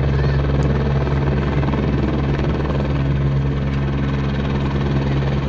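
Helicopter running on the helipad with its rotor turning: a steady, unbroken engine and rotor drone.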